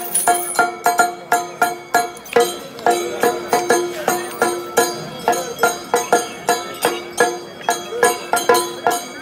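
Traditional-style music: a steady beat of ringing percussion strikes, about three a second, over a held tone.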